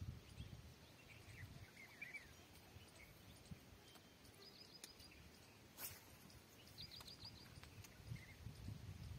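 Near silence with faint bird calls: a few chirps early on, then two quick runs of about five high notes, with a single sharp click just past the middle.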